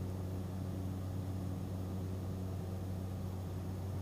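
Cessna Grand Caravan's turboprop engine and propeller droning steadily at climb power, a low, even hum.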